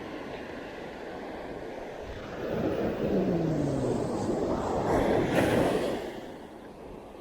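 An engine passing by, swelling over about three seconds and then fading, its pitch falling as it goes past. A steady rush of wind or surf runs underneath.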